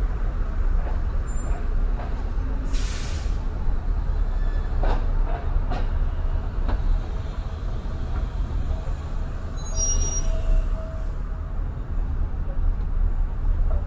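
Steady low road rumble of city traffic heard from a moving car, with a city bus alongside. About three seconds in, the bus's air brakes give a short hiss.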